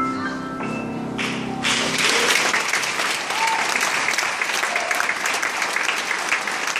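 The song's last sustained notes die away, and about two seconds in the audience breaks into steady applause, which continues to the end.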